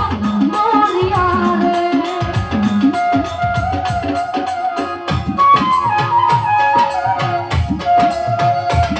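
Live Bengali folk music: a held melody line over a steady hand-drum rhythm, with low drum strokes that bend in pitch.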